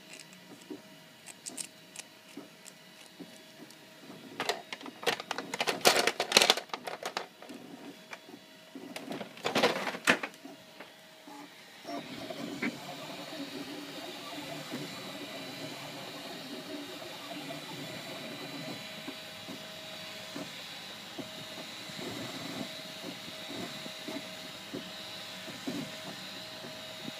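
Clicking and rattling of a hand-held 3D-printed plastic wrench being worked, loudest in two spells in the first half. About twelve seconds in, this gives way to an Ultimaker 2 3D printer running steadily with a faint high whine.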